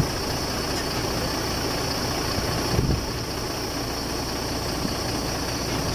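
Heavy vehicle engine idling steadily, as from the crane truck holding the suspended load.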